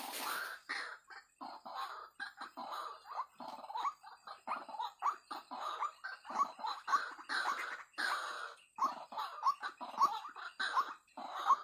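White-breasted waterhens (wak-wak birds) calling: a long, rapid series of short, harsh notes, several a second, many of them sliding quickly upward.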